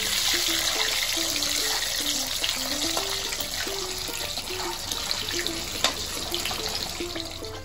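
Steady kitchen hiss with a few sharp ticks, under background music of plucked guitar-like notes. The hiss stops abruptly at the end.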